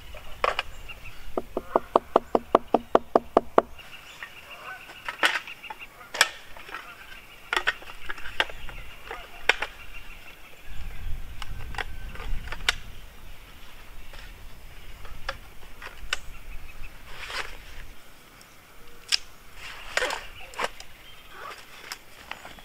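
Camping gear being handled and packed up: scattered sharp clicks and knocks, with a fast rattling run of about a dozen pulses lasting about two seconds near the start.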